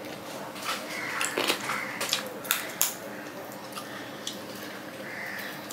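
A man eating rice and curry with his fingers, close to the microphone: wet chewing and lip-smacking clicks, many short ones in uneven succession, with soft squishing of rice gathered in the hand.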